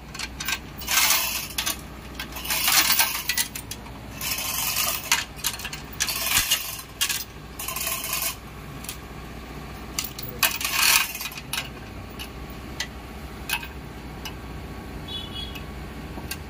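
Metal tools and parts clinking and scraping in irregular bursts over a steady low hum, as in hands-on work on an engine.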